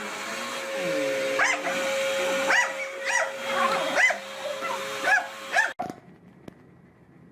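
A dog yipping and whining in short cries that rise and fall in pitch, about six of them over four seconds, over a steady hum. The sound cuts off suddenly near the end.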